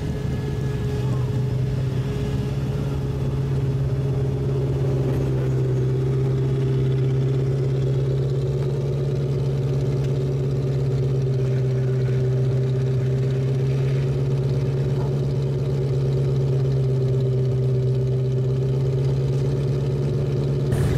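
Ferrari 348's V8 engine running at a steady, unchanging speed, one even note with no revving.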